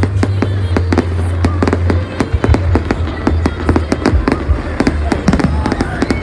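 Fireworks going off in quick succession: many sharp bangs and cracks a second, over a steady low rumble.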